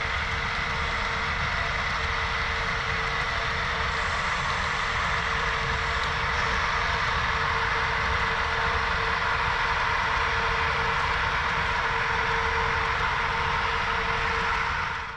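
Sound-equipped HO scale BNSF diesel locomotives with LokSound decoders running, giving a steady diesel engine rumble with a constant tone over it.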